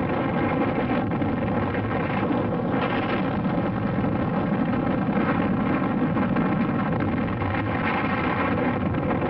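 Sustained rumbling roar of an atomic bomb explosion, steady and loud throughout, with a droning hum running through it.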